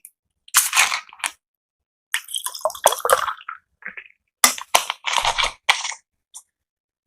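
A person's burps and mouth noises from the gas of drunk cola. They come as short, loud outbursts in three clusters: about half a second in, from about two to three and a half seconds, and from about four and a half to six seconds.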